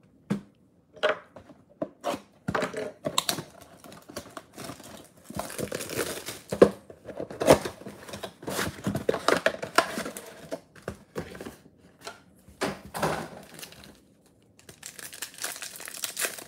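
A 2022 Bowman baseball mega box being opened by hand and its foil-wrapped card packs pulled out. Irregular crinkling, tearing and rustling of cardboard and wrappers, busiest in the middle, with a brief lull near the end.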